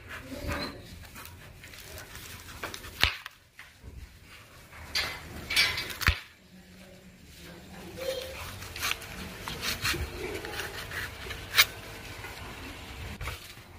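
Kitchen knife tapping and scraping on a plastic cutting board as green chillies are slit lengthwise, with a handful of sharp knocks scattered through.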